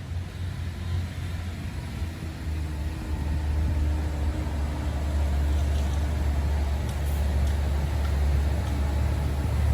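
Bus engine rumbling low and steadily, growing louder about two to three seconds in and then holding.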